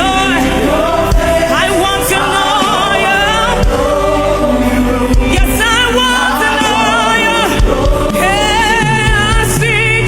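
Gospel worship music: sung voices with vibrato over sustained keyboard chords and a steady low beat.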